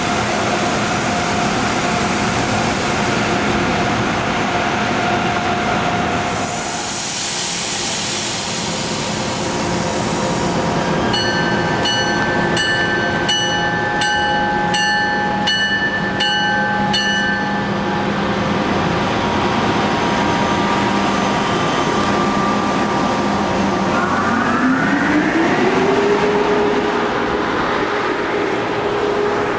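Amtrak Acela Express electric trainset at the platform, its steady hum and rushing air filling the sound. Midway a bell rings about twice a second for several seconds. Near the end a motor whine rises in pitch and then holds as the train gathers speed.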